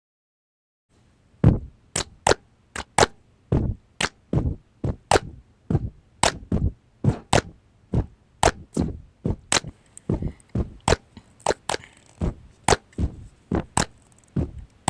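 A steady series of sharp clicks or crunches, about two or three a second, starting about a second in.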